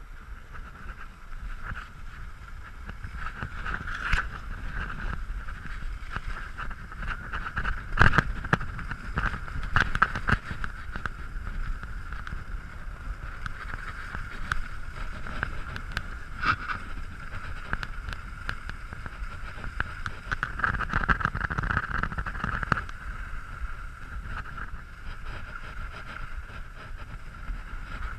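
Skis sliding and scraping over packed, groomed snow during a downhill run, a continuous rushing noise with wind on the microphone. A few sharp knocks come through now and then.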